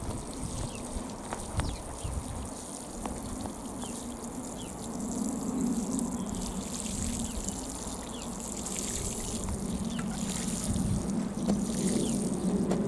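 Water spraying steadily from a plastic watering can's rose onto soil, watering in freshly sown seed rows.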